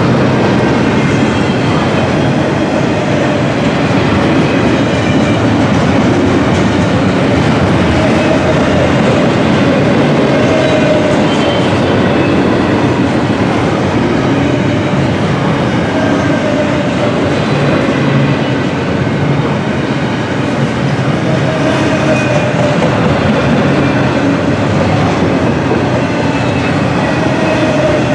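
A long freight train of auto rack and intermodal container cars rolling past close by: a loud, steady rumble of steel wheels on the rails. Faint wavering squeals come and go through it.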